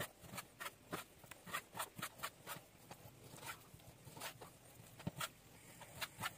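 Chef's knife cutting raw meat into chunks on a wooden cutting board: quick, irregular strokes, each a faint knock or scrape of the blade through the meat onto the board, with a pause of about a second midway.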